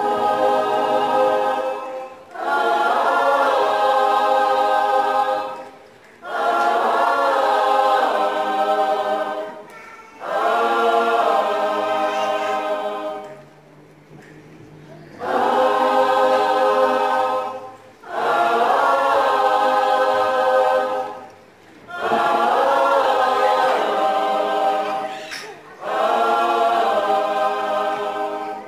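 Mixed choir of young men and women singing unaccompanied, in phrases of two to four seconds broken by short pauses for breath.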